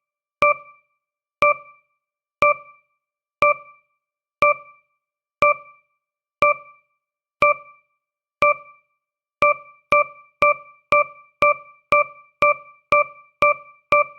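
Countdown timer's electronic tick sound, a short bright pitched tick that dies away quickly, once a second. About nine and a half seconds in, the ticking speeds up to twice a second.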